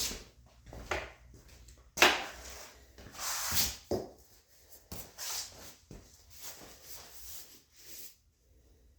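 Irregular knocks, clatter and rubbing of metal and plastic parts being handled while fitting a motorcycle seat, with a sharp knock about two seconds in and scraping bursts after it.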